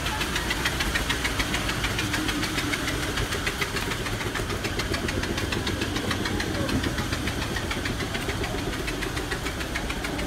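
A small engine running steadily with a fast, even knocking beat, with voices in the background.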